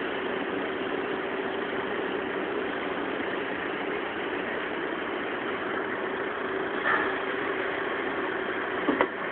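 Former JNR 101 series electric train standing with its equipment running, giving a steady hum with a faint held tone. A couple of short clicks come about seven and nine seconds in.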